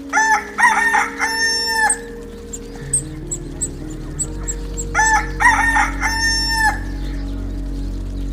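A rooster crowing twice, each crow about two seconds long, the second about five seconds in. Soft background music with long held notes plays underneath.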